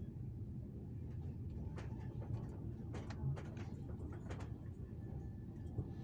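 Steady low rumble of a moving passenger train heard from inside the carriage, with a few scattered sharp clicks, the loudest about three seconds in.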